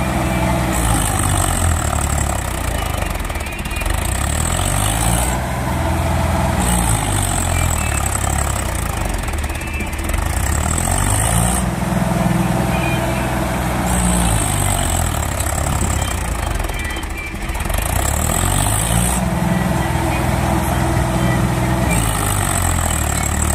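Swaraj 855 FE tractor's three-cylinder diesel engine revving up and easing off again and again, a swell about every five to seven seconds, as it strains to pull a loaded trolley through mud.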